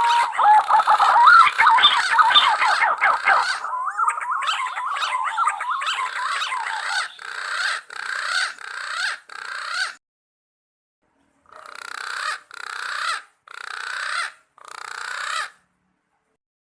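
Green pigeons (punai) calling: a dense chorus of fluting, warbling whistles that glide up and down in pitch. After about seven seconds it breaks into short separate bursts about one a second, with a brief silence about ten seconds in, and stops well before the end.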